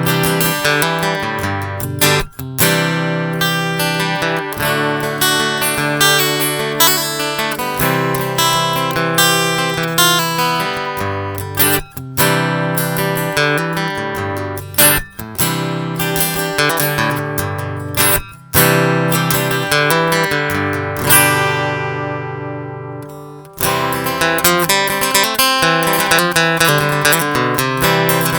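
Takamine EF-349 dreadnought acoustic-electric guitar played plugged in through its Graph-EX pickup system, chords strummed and picked one after another with brief breaks. About 21 seconds in, one chord is left to ring and fade out before the playing picks up again.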